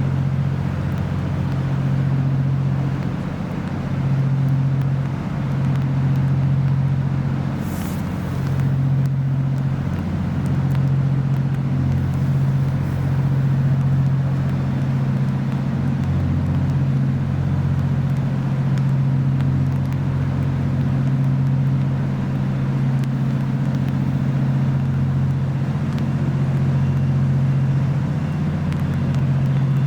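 A low, steady engine drone with a deep hum that swells and eases every few seconds.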